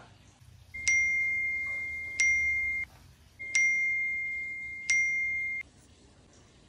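Smartphone message-notification ding sounding four times in two pairs, each a bright single-pitched chime that rings and fades: incoming chat messages arriving one after another.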